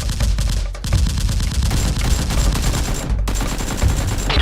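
Rapid bursts of automatic gunfire, shot after shot in quick succession, with short breaks about a second in and again about three seconds in.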